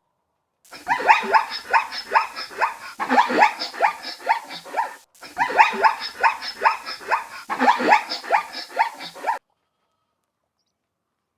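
Dog barking in a fast run of short, high yaps, about four or five a second. The run breaks off briefly about halfway and starts again in the same pattern, as if the same recording were played twice.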